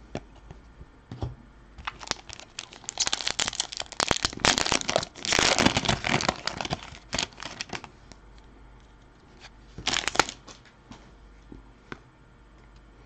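Foil wrapper of a hockey card pack being torn open and crinkled in dense crackly bursts for several seconds, then one shorter crinkle about ten seconds in.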